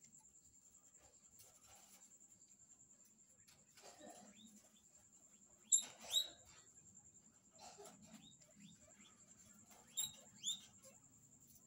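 Guinea pigs squeaking: two quick pairs of short, rising squeaks, about six seconds in and again near ten seconds, with faint rustling between them.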